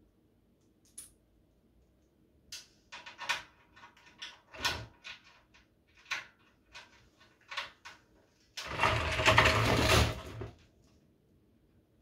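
Small metal fittings and parts clicking and clinking against the stainless-steel drum of a Titan wet/dry vacuum as they are handled and fitted. Near the end comes about two seconds of louder scraping rumble as the drum is shifted round on the concrete floor.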